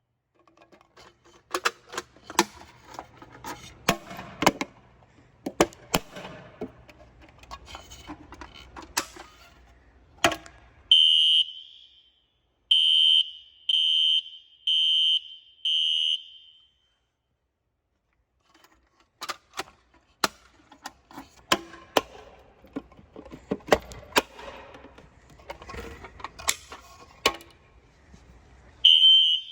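Fire alarm horn sounding in short, loud blasts about a second apart, five of them midway and another just before the end. Before and between them are stretches of scattered clattering knocks and clicks.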